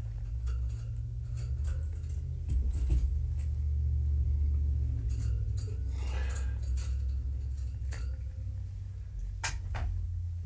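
Steady low rumble with scattered light knocks and clicks from a person moving about close by among kittens, with a brief light metallic jingle about three seconds in and a sharper knock near the end.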